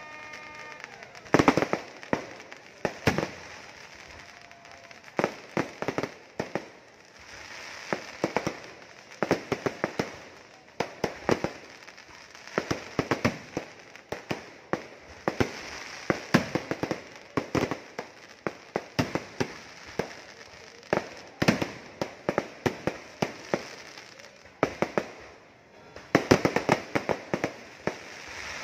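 Festival fireworks display: aerial shells and firecrackers going off in rapid clusters of sharp bangs and crackles, with short lulls between volleys. The barrage eases off briefly shortly before the end, then a dense run of bangs follows.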